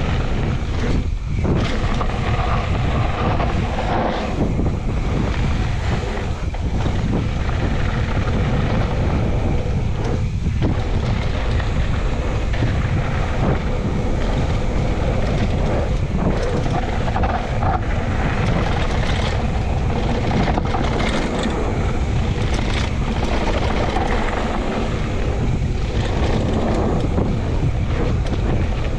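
Steady wind buffeting the microphone of a mountain bike descending a downhill trail, with a continuous low rumble from the bike over the ground.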